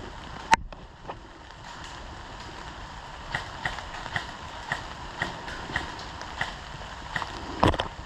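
Footsteps on hard ground at about two steps a second, with one sharp click about half a second in and a couple of louder knocks near the end.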